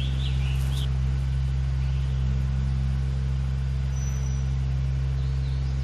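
An engine idling steadily, a low even hum that does not change, with birds chirping faintly over it now and then.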